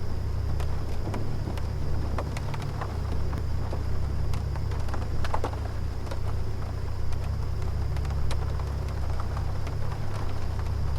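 Room air conditioner running with a steady low hum and a thin high tone, with scattered light ticks of rain from the storm outside.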